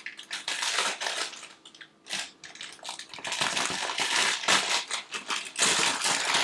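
Clear plastic packaging of diamond painting kits crinkling and rustling in irregular bursts as it is handled.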